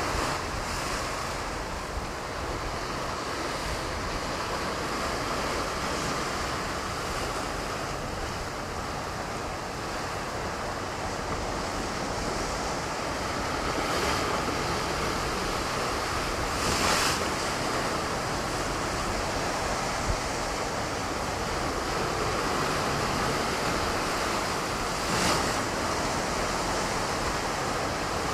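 Ocean surf washing against a rocky shore in a steady rush, with a few louder waves breaking, about halfway through and again near the end.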